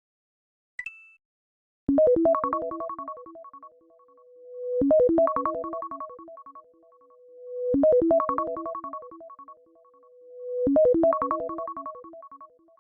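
iPhone iOS 17 ringtone: a short phrase of quick keyboard-like notes that repeats four times about three seconds apart, each repeat fading away and a swelling tone leading into the next. A short high blip comes just before the first phrase.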